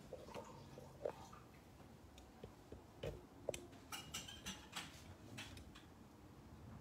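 Faint scattered clicks and taps of a glass bottle and communion vessels being handled and set down, with a quick run of taps about four to five seconds in.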